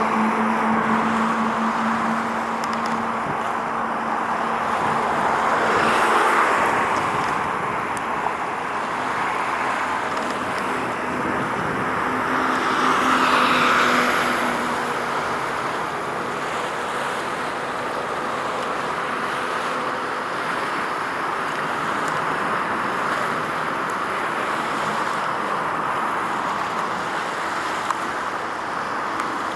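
Steady road traffic noise, with vehicles swelling past about six and about thirteen seconds in.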